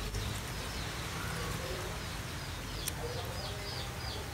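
Small birds chirping in the background: a quick series of short, falling chirps, about four a second, thickest in the second half, with a few fainter lower calls. A steady low hum lies under it, and there are one or two soft clicks.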